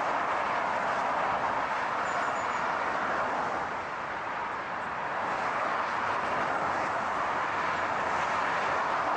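Steady noise of a car driving, an even rushing sound of tyres on the road, easing slightly for a moment about four seconds in.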